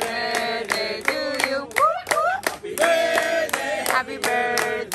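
A group of people singing together while clapping hands in a steady rhythm, about three claps a second.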